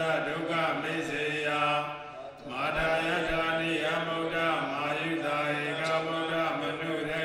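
Buddhist monks chanting, with long drawn-out held notes over a steady low voice line, broken by a short pause for breath about two and a half seconds in.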